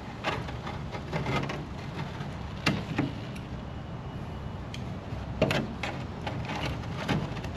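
Razor blade scraping and peeling old glued-down lining up from a metal tool chest, in irregular scratchy strokes, with a few sharper rasps around three seconds in and again about five and a half seconds in.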